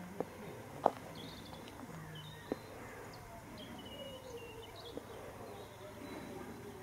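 Open-field ambience with small birds chirping in the background and one held high call near the middle. A few sharp clicks stand out, the loudest about a second in.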